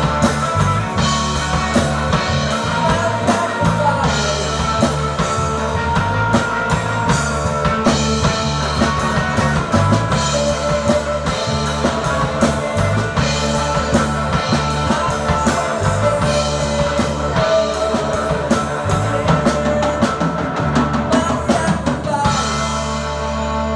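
Live rock band playing: distorted electric guitar over a drum kit. The drums stop about two seconds before the end, leaving the guitar ringing on its own.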